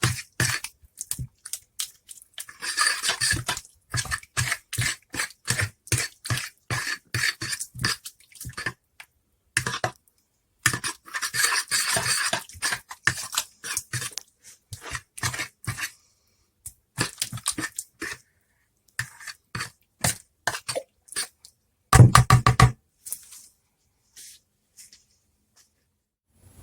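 Hands kneading and squeezing grated coconut in warm water in a bowl, making repeated short wet squelches in bunches as the coconut milk is worked out. A louder, deeper knock comes near the end.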